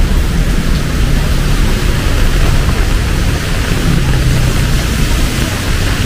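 Heavy rain pouring steadily, with the low rumble of road traffic engines underneath.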